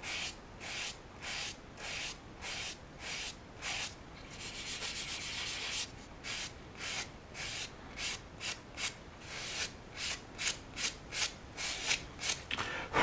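Sandpaper rubbed by hand back and forth over a cast resin figure part, taking down a mold line. The strokes come about two a second, run into a fast flurry of short strokes around four to six seconds in, and quicken again toward the end.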